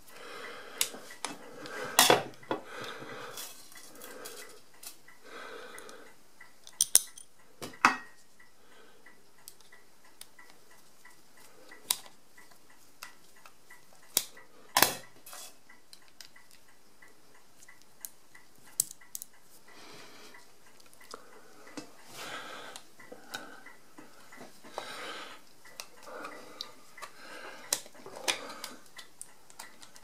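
Small steel screws and a screwdriver clicking and clinking against metal as screws are refitted to the resetting-crank plate of an Odhner pinwheel calculator's carriage. The clicks are irregular and sharp, the loudest about two seconds in and again near fifteen seconds.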